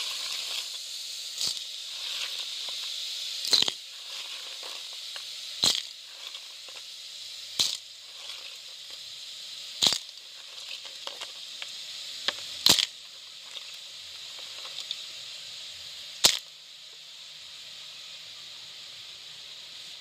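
Sea snails (aninikad) sizzling in a hot pot on a bed of sautéed onion and garlic: a steady hiss that slowly dies down, broken by sharp pops about every two seconds.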